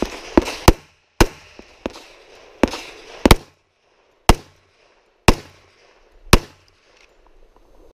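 A string of about nine pistol shots, sharp and loud. The first shots come in quick pairs, then they slow to single shots about a second apart.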